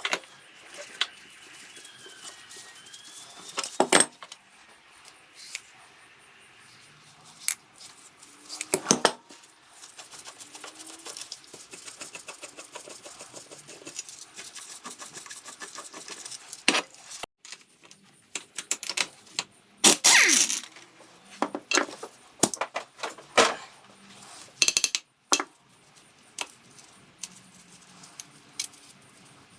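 Metal tools and parts of a Vespa PX150E scooter engine clinking and clanking as the engine is taken apart, with a few louder clanks and a stretch of fast light clicking in the middle.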